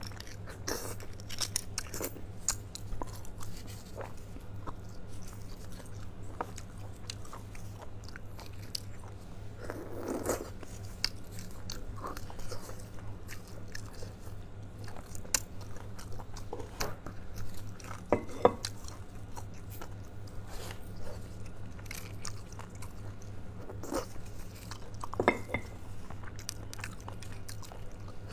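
Close-miked ASMR eating of spicy beef bone marrow: chewing and biting with many short, sharp mouth clicks, over a steady low hum.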